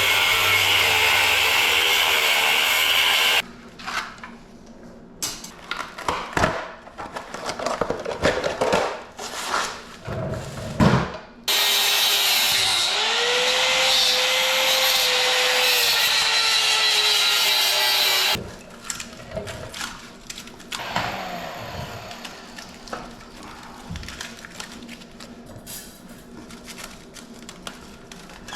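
Power saw cutting through the metal of an old welder in two long runs, its motor pitch rising and then sagging under load during the second cut. Clanks and rattles of metal parts being handled come in between.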